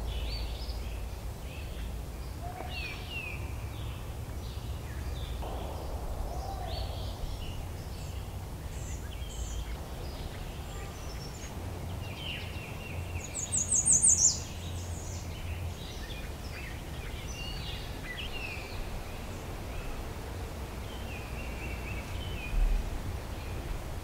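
Spring woodland birds calling and singing, with many short chirps and song phrases overlapping and one loud, rapid run of high, falling notes about midway. A steady low rumble runs underneath, and there is a short low thump near the end.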